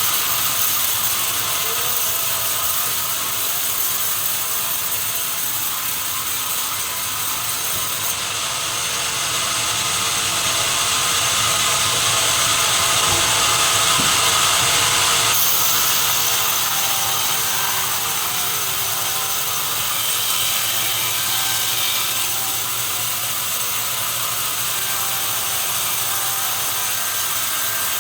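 Sawmill saw cutting a log, a steady high whine and hiss of the blade over running machinery, growing louder from about a third of the way in to the middle.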